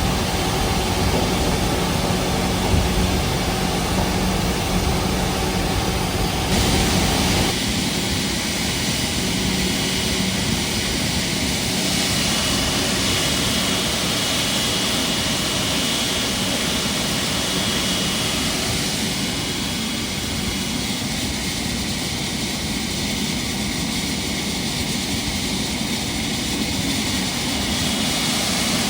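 Jet engines running steadily during a Boeing 777F GE90-110 ground start with a jet air starter: a continuous rush of air with a thin high whine. About seven seconds in, the sound turns brighter and hissier as the low rumble drops away.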